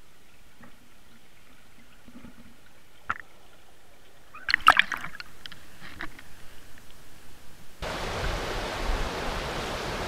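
Muffled sound from a submerged underwater camera: a few faint clicks, then knocks and sloshing from about four and a half seconds in as the camera is moved through the water. Near the end, the steady rushing of a fast river current takes over.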